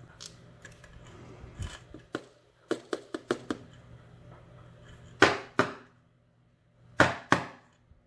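Small metal clicks and taps of tweezers against lock parts while a lock cylinder is taken apart. A quick run of light clicks comes about two to three seconds in, then two pairs of sharper, louder clicks come around five and seven seconds in.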